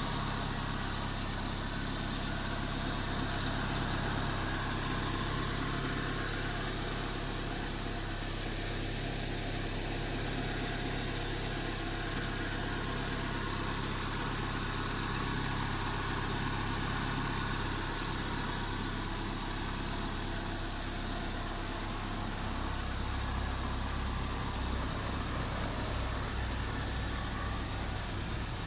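Proton Gen-2 twin-cam four-cylinder engine idling steadily, run for a while after its cylinder head and head gasket have been refitted. The low hum shifts slightly about three-quarters of the way through.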